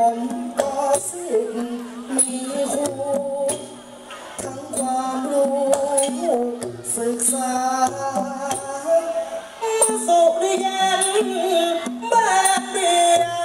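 Thai likay folk-opera music: a performer sings through a microphone and PA over the stage ensemble's accompaniment, with long held and gliding notes and sharp percussion clicks throughout.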